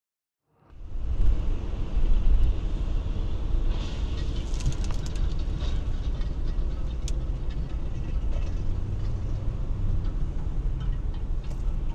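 Car driving on a wet highway, heard inside the cabin: steady low rumble of engine and tyres with road hiss, starting abruptly just under a second in. A cluster of sharp clicks and ticks comes about four to five seconds in, and a single sharp click around seven seconds.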